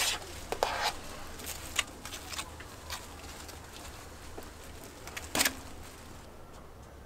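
Metal spatula scraping and tapping in a stainless-steel tray as whipped cream is scooped and spread onto a waffle: scattered light clicks and scrapes, with one sharper knock about five seconds in.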